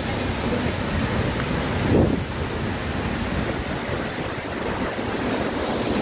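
Large waterfall crashing into its pool: a steady, even rushing of falling water. A short louder sound stands out about two seconds in.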